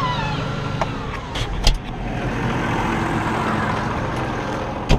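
New Holland T7 tractor engine running while the cab door is unlatched and swung open with a sharp clunk about a second and a half in, after which the engine sounds louder and more open. Another sharp knock comes near the end, as the operator steps down from the cab.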